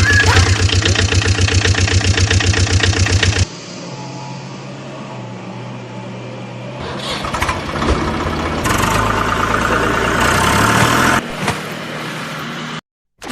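An engine running with a fast, even chugging rhythm that cuts off abruptly a few seconds in. It is followed by quieter, changing vehicle sound that rises again for a few seconds later on.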